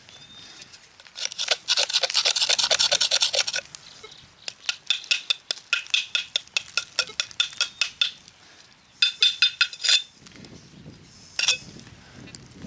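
Metal digging tool scraping and tapping at an iron railway spike to knock the soil off it: three bursts of quick strokes with a ringing metallic edge, then a single click near the end.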